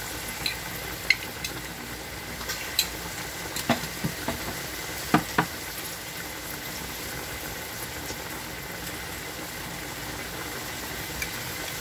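Chicken pieces and chopped onion sizzling steadily in oil in a stainless steel pot, with a few light clicks and knocks in the first half.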